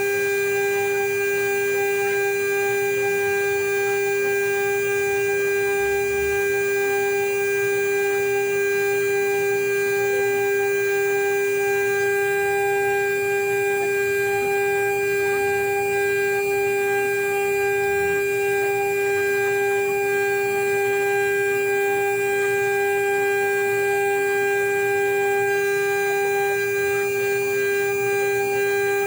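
CNC router spindle whining at one steady high pitch, running continuously during the engraving of a marine-aluminium seal plate.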